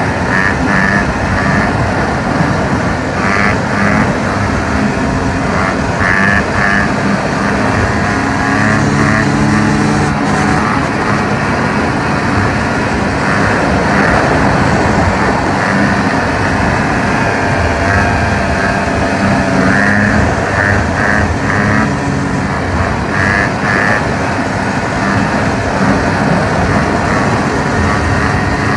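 Dirt bike engine running at speed through a wheelie, loud and steady, its revs wavering up and down with the throttle.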